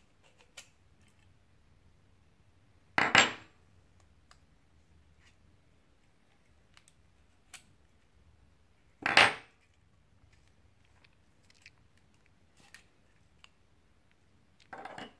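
Copper and plastic pipe being pushed into and pulled out of a John Guest Speedfit plastic push-in tee: two loud, short knocks about six seconds apart and a softer one near the end, with light handling clicks between.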